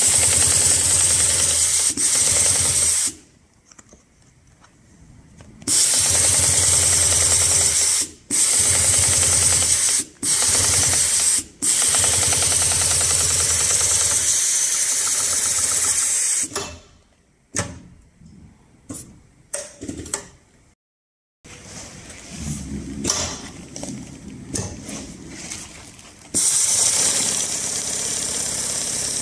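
HighTex 53800C heavy-duty long-arm double-needle chainstitch sewing machine running in bursts, stitching through heavy canvas and geotextile with a fast, even rattle of the needle bar and a high hiss. It stops and restarts several times, with scattered clicks in the pauses and a quieter stretch of running before it runs at full speed again near the end.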